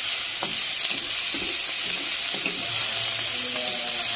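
Water spinach and spice paste sizzling steadily in hot oil in a wok while a spatula stirs and scrapes through it, with a few short scrapes and knocks of the spatula against the pan.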